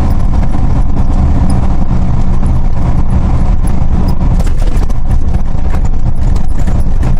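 Inside the cab of a 2002 Hyundai Galloper II on the move, the diesel engine and road noise make a loud, steady low rumble.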